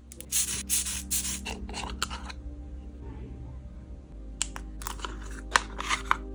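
A quick series of hissing puffs from a bulb atomiser spraying shimmer body mist, then soft scraping of a spatula in a jar of cream mask, and sharp clicks and taps near the end as the jar and glass ampoules are handled, over faint background music.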